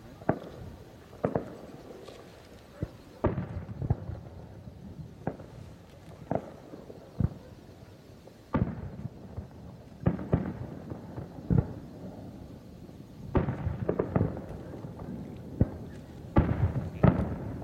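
Aerial firework shells bursting: an irregular run of sharp booms, each trailing off in an echo, coming in quick clusters toward the end.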